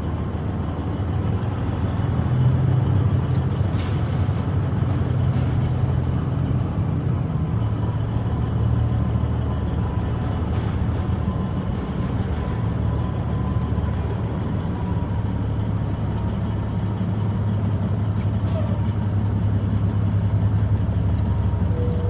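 Semi truck's diesel engine running steadily at low speed as the truck creeps forward, a low rumble heard from inside the cab.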